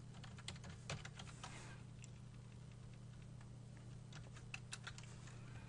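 Computer keyboard being typed on, faint keystrokes in two short runs, one in the first second or so and one near the end, over a low steady hum.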